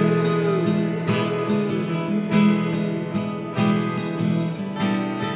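Background music: a song led by a strummed acoustic guitar, strokes coming evenly.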